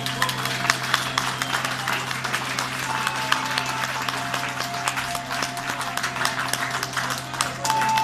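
A rock band playing a quiet passage live: electric guitars holding long sustained notes over a steady low drone, with many short sharp clicks throughout.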